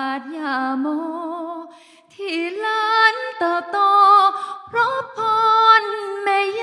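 A woman singing a slow Thai song solo into a microphone, with no audible accompaniment and a wavering vibrato on held notes; she breaks off for a breath about two seconds in, then goes on.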